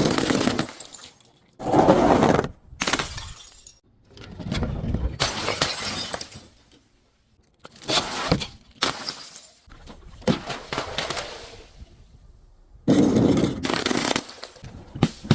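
Glass bottles breaking and crunching in a series of separate bursts of crackling and shattering, with short pauses between them and a longer crunch near the end.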